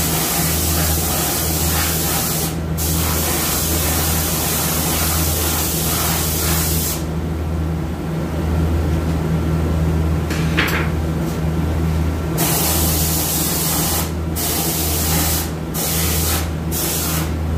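Steady low machine hum under a loud, even hiss, with no speech. The upper part of the hiss drops away for about five seconds midway and briefly a few times near the end.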